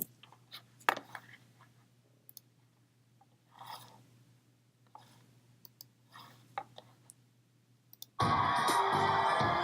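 Scattered small clicks and short crunches at a low level. About eight seconds in, loud music cuts in abruptly.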